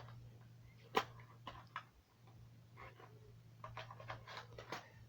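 Light handling clicks and taps of packs of staples being picked up and put down, with one sharper click about a second in, over a steady low hum.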